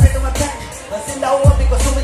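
Loud music through a stage sound system, with deep booming bass hits right at the start and again about a second and a half in, and a voice singing or rapping over it.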